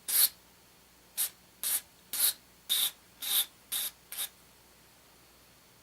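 Sandpaper rubbing over small LEDs in short strokes, eight of them in about four seconds, to scuff the lenses so the light diffuses.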